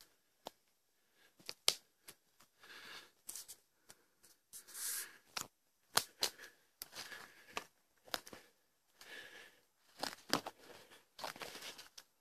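Footsteps crunching and rustling through thick dry fallen leaves, an uneven bursty rhythm with a few sharp clicks among the steps.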